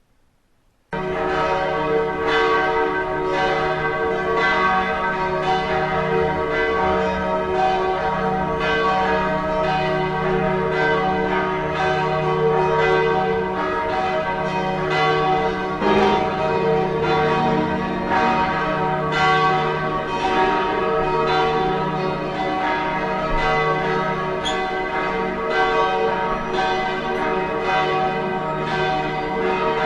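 A peal of bells ringing, starting suddenly about a second in: a rapid run of overlapping strikes, about two a second, each note ringing on into the next.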